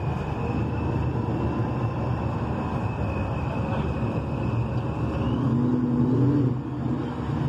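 A car engine idling with a steady low rumble, with a faint steady high whine above it.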